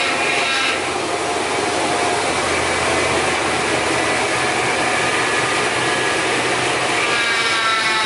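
Old pickup truck's engine running as the truck creeps along under its own power, with the engine note sliding up and down near the end as it is revved.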